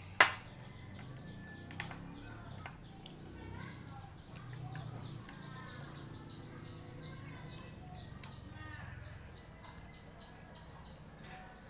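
A bird chirping over and over, about three to four short chirps a second, over a low background hum. One sharp knock sounds just after the start.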